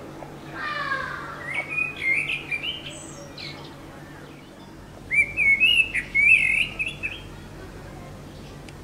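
Blackbird singing: two warbled song phrases, one starting about a second and a half in and a louder one starting about five seconds in.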